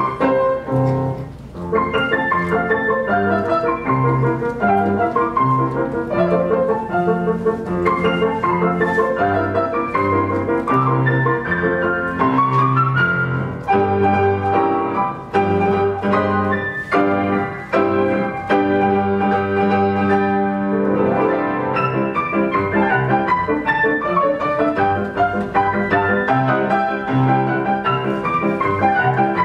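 Live duet music: a grand piano plays a lively, busy accompaniment under a small hand-held wind instrument carrying the tune, with one long held note about two-thirds of the way through.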